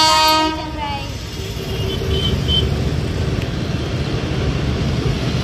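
Passenger train hauled by a WAG-9 electric locomotive running past on the track: a steady low rumble of the coaches' wheels on the rails.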